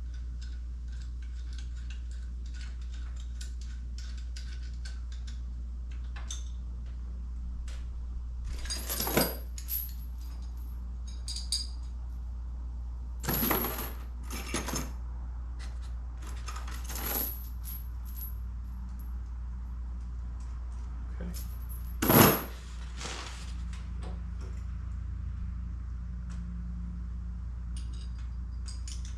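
Loose metal bolts and jack parts clinking and clattering as they are handled, with several louder metallic clanks, the loudest late on, over a steady low hum.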